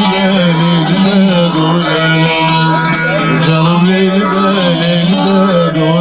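Bağlama (long-necked Turkish saz) playing continuously with a voice singing over it: the music of an Alevi cem, played for the semah dance.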